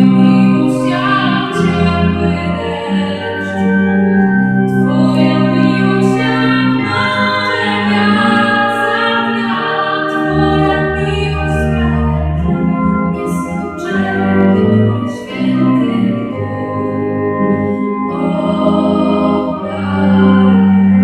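A woman singing a slow song over sustained organ chords.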